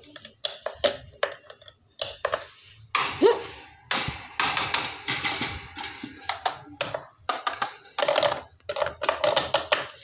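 Irregular taps, clicks and scrapes of handling noise against the recording phone's microphone, several a second, with a brief rising squeak about three seconds in.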